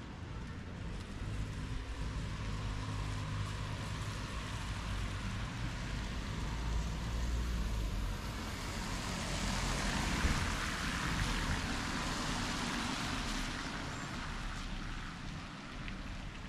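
Street traffic: a motor vehicle running past, a low engine hum followed by a rushing tyre-and-air noise that swells to its loudest about ten seconds in and then fades.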